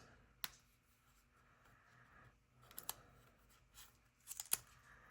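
A few faint, sharp metallic clicks as a Zippo Blue butane lighter is handled. One comes about half a second in, a couple in the middle and a close pair near the end.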